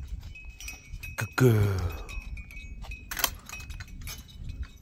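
A hanging metal bell clinking and ringing faintly, with a few sharp clinks. About a second and a half in, a short vocal sound falls in pitch.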